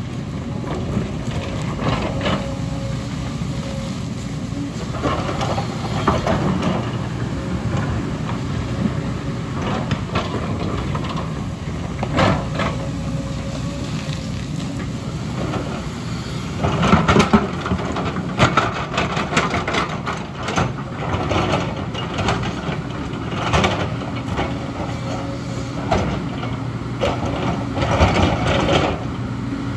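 JCB tracked excavator's diesel engine running steadily under hydraulic load as the machine digs into a rocky slope and dumps the spoil. From a little past halfway, rocks and the steel bucket clatter and scrape in a run of sharp knocks over the engine.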